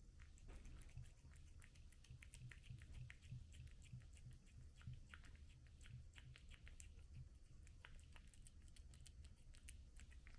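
Cat eating: faint, quick wet clicks and smacks of chewing and licking, several a second.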